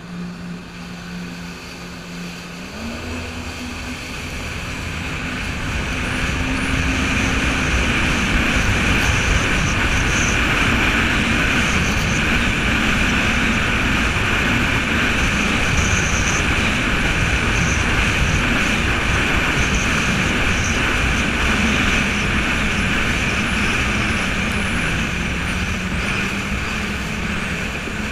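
Jet ski engine accelerating: its pitch steps up about three seconds in and it grows much louder over the next few seconds, then holds at high speed under a loud rush of wind and water.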